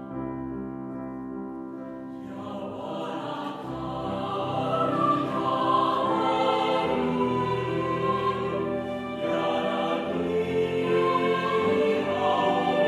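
Slow orchestral background music with choir voices, holding sustained chords. It grows fuller about two seconds in and louder a couple of seconds later.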